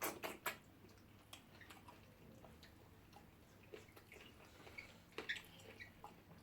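Faint eating sounds: scattered small wet clicks and smacks of chewing, with two slightly louder clicks near the start.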